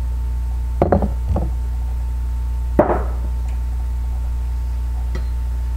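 A few short knocks and clatters against a frying pan as chopped chicken pieces go in, the loudest about three seconds in, over a steady low hum.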